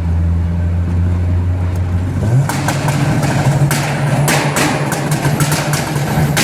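Turbocharged VW Gol engine revved up hard about two seconds in, then held high while it cuts out in a rapid, irregular string of sharp pops and bangs, echoing in a tunnel. The owner blames the cutting out at 5,000–5,500 rpm on a failing engine speed sensor.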